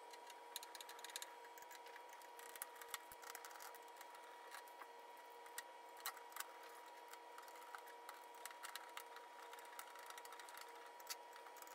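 Faint scattered clicks and light metal taps as steel legs are handled and screwed onto the upturned pellet grill's steel body, over a faint steady high tone.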